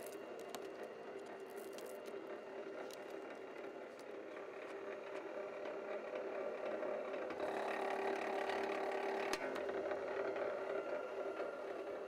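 BLUEROCK MWS-808PMO motorized wire stripper running steadily, its 1 HP electric motor and gear-driven rollers humming. About seven seconds in, a 6 AWG stranded THHN wire passes through the cutter and the sound grows louder and harsher for a couple of seconds as the blade slits the insulation, with a sharp click near the end.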